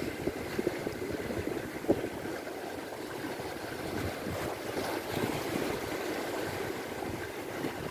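Steady wash of sea waves with wind rushing on the microphone. One short click about two seconds in.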